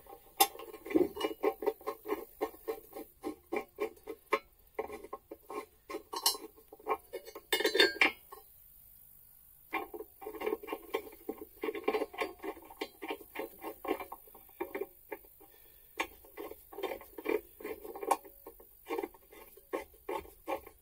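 Steel track bolts and square nuts clinking and rattling against a steel dozer track pad as they are handled and set into its bolt holes. There is a pause of about a second and a half partway through.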